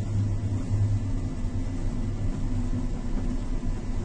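Steady low drone of a cargo ship's engine heard from aboard, over a rushing noise of wind and sea.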